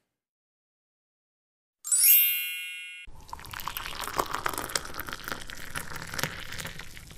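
A bright bell-like ding rings out about two seconds in and fades away. From about three seconds in, water pours and splashes into a steel saucepan holding eggs.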